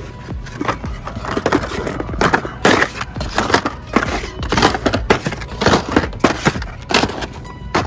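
Blister-packed Hot Wheels cars clacking and rustling as a hand flips through them in a cardboard display: irregular sharp plastic clicks and scrapes, several a second.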